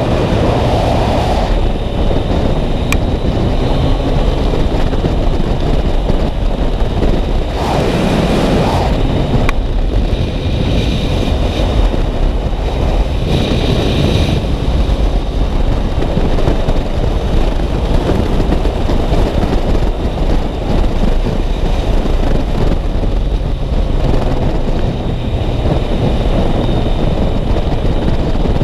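Wind buffeting the microphone on a moving Yamaha MT-09 motorcycle, its three-cylinder engine running underneath, with the sound swelling briefly about eight seconds in.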